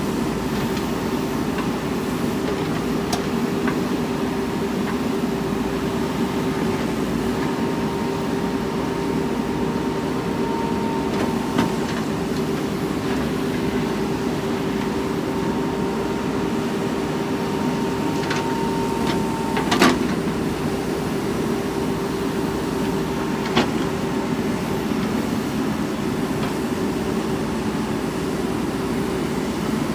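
Backhoe loader's diesel engine running steadily, with a few sharp knocks; the loudest knock comes about two-thirds of the way through.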